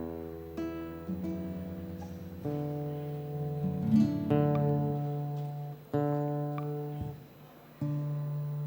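Acoustic guitar playing the slow introduction to a Cuyo tonada, chords plucked and left ringing, with a short pause about seven seconds in.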